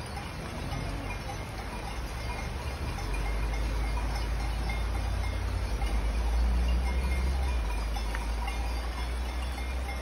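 Cowbells on cattle being driven down from the alp, ringing over a low rumble that grows louder after about three seconds and eases off near the end.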